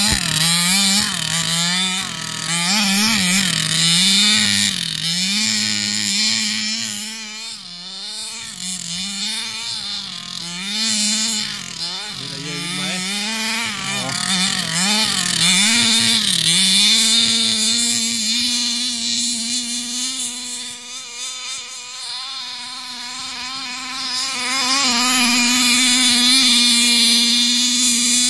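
HPI Baja 5b 1/5-scale RC buggy's small two-stroke petrol engine revving up and down over and over as it drives. In the last ten seconds or so it holds a steady pitch.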